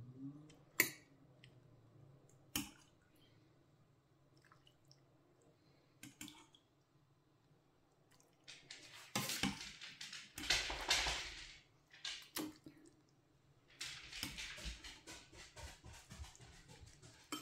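A metal ladle scooping soup from a stainless steel pot and pouring it into a bowl: two sharp clinks of the ladle in the first few seconds, then two stretches of splashing, dripping liquid.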